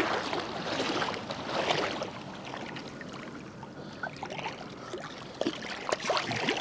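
Seawater sloshing and splashing in a rock pool as a stingray is moved about in it. There is a surge of splashing in the first two seconds, then quieter lapping with scattered small splashes and drips.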